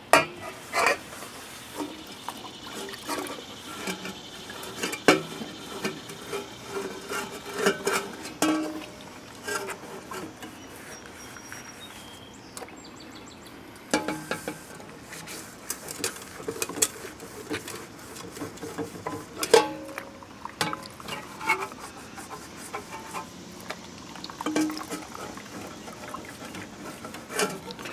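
Soot-blackened aluminum camp pot being handled and wiped, with scattered clinks and knocks of metal against a larger pot and cloth rubbing on the metal.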